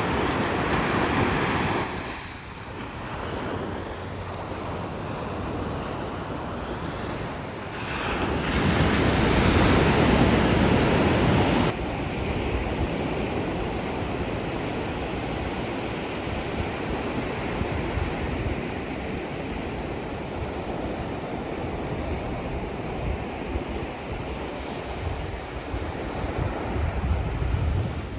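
Ocean waves washing onto the shore, with wind buffeting the microphone. A louder surge of surf builds about eight seconds in and cuts off sharply near twelve seconds.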